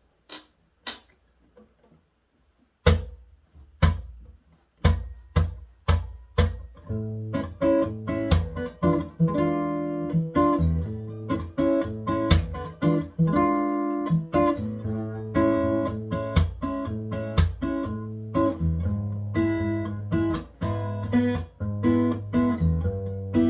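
Taylor 714ce X-braced acoustic guitar playing a bossa nova arrangement: after a few faint taps, single loud chords ring out from about three seconds in, then from about seven seconds a steady syncopated bossa rhythm of chords over bass notes.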